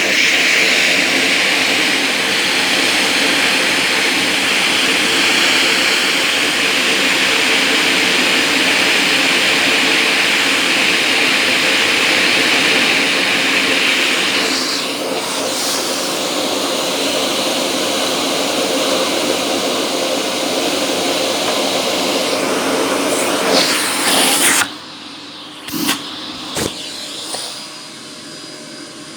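Budget Argos Simple Value vacuum cleaner running loudly with a steady hiss that thins a little about halfway through. Near the end the noise cuts off sharply, leaving a low hum and a few knocks.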